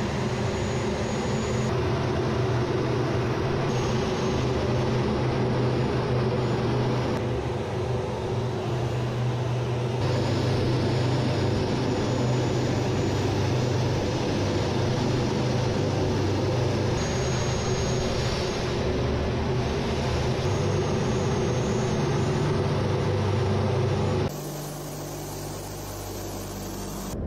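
Steady jet engine and airflow noise heard inside a fighter jet's cockpit, with a low hum under it. Near the end it drops to a quieter, duller drone.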